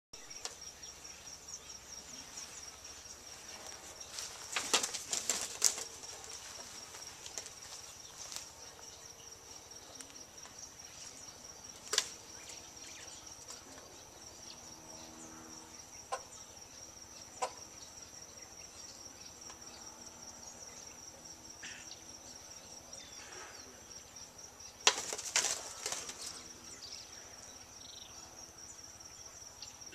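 Von der Decken's hornbills pecking and fluttering at their own reflection in a bathroom mirror over a sink. Two bursts of sharp taps and wing flaps come about five seconds in and near the end, with a few single taps between. A steady high insect trill runs underneath.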